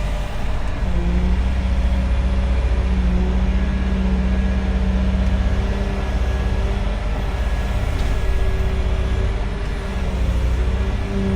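Heavy diesel engine of an earthmoving machine running steadily, a continuous low drone with a steady hum.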